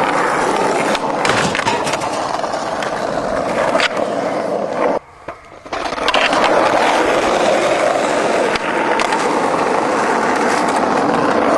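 Skateboard wheels rolling steadily with a few clacks. The rolling drops out for under a second about five seconds in and then picks up again.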